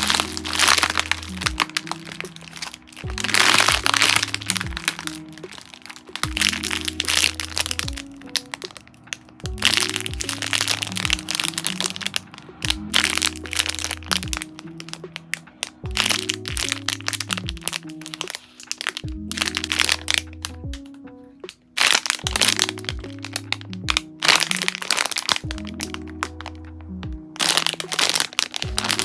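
Clear plastic packaging bags crinkling and crackling in irregular bursts as hands squeeze the squishy toys sealed inside them. Lo-fi background music with a repeating bass line plays underneath.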